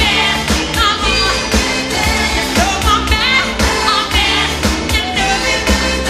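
Pop song: a man singing over a steady drum beat and backing band.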